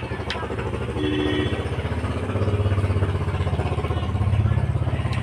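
A small engine running steadily with a fast, even low pulsing, rising and falling a little in loudness. A brief high tone sounds about a second in.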